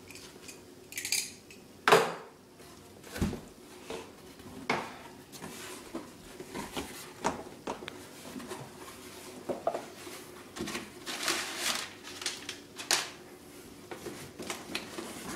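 A cardboard box and its packaging being opened and handled: scattered knocks, clicks and rustling, with one louder knock about two seconds in.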